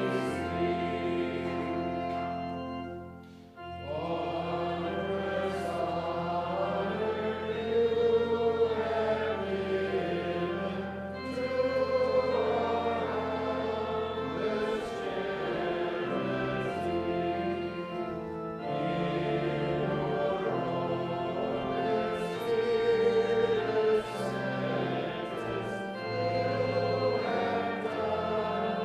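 Many voices singing a hymn together over held low accompanying notes, with a short break between phrases about three seconds in.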